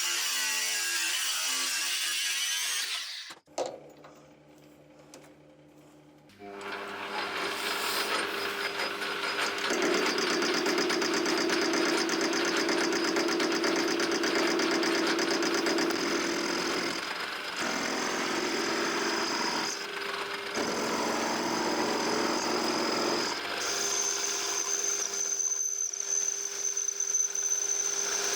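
Electric power tool motor running with a steady whine. It drops away for a few seconds near the start, then starts again and runs on with small changes in pitch.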